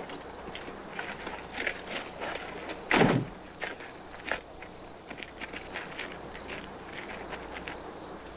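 Crickets chirping steadily in a night ambience, with scattered light clicks and rustles and one louder thump about three seconds in.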